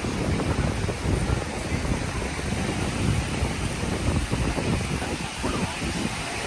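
Strong wind buffeting the microphone in uneven gusts, over the steady wash of rough surf breaking on the shore.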